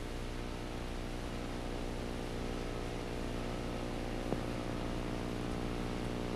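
Motor grader's diesel engine running steadily as the grader drives along, its blade spreading asphalt mix in a pavement patch, with one short knock about four seconds in.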